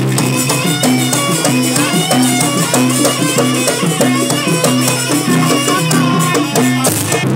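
Jaranan gamelan accompaniment playing a fast sampak piece: a reedy, quick-stepping melody over evenly repeated gong-chime notes, drums and rattling percussion.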